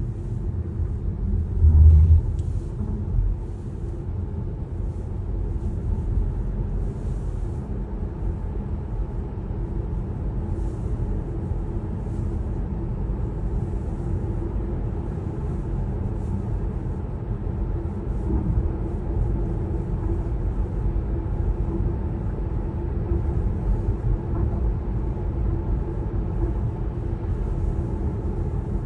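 Steady low rumble, like a moving vehicle heard from inside, with one louder low thump about two seconds in.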